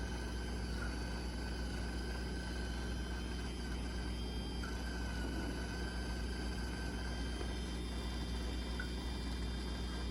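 Electric makeup brush cleaner running steadily, its small motor spinning a brush in a cup of cleanser with a low, even whir.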